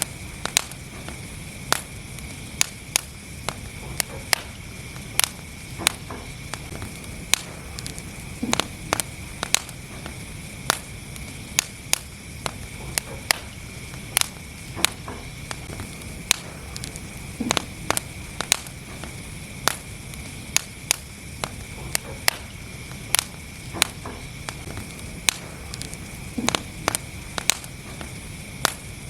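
Wood fire burning in a fireplace, crackling with sharp, irregular pops a few times a second over a steady low rumble of the flames.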